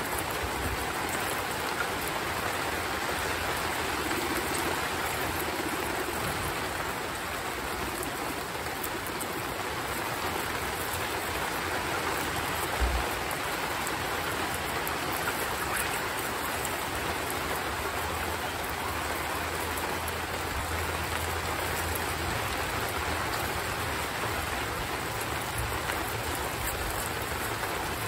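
Heavy rain falling steadily, an even hiss throughout, with one brief knock near the middle.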